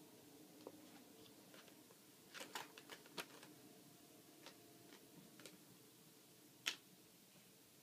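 Faint, scattered clicks and taps of small parts and tools being handled while working on a laptop, with a short cluster about two and a half seconds in and one sharper click near the end.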